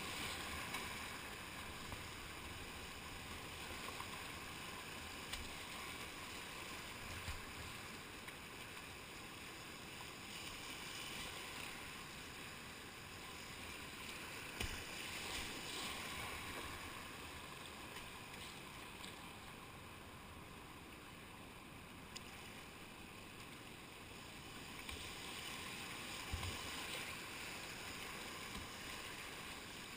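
Whitewater rapids rushing around a kayak, with paddle strokes splashing. The rush swells and eases every few seconds, with a few short knocks.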